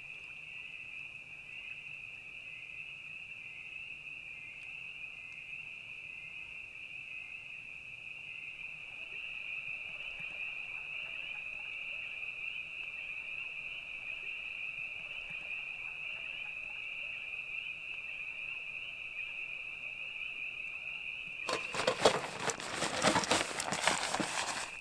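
A steady, high-pitched trill of crickets. About three seconds before the end, loud crinkling and rustling begins: a nylon roll-top dry bag being rolled shut by hand.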